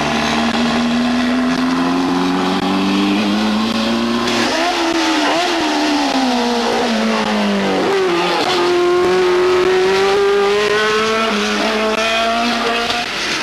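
A Renault 5 Turbo's engine pulling with revs climbing, then a single-seater racing car's high-revving engine, its pitch falling and rising through gear changes as it comes up the hill and past.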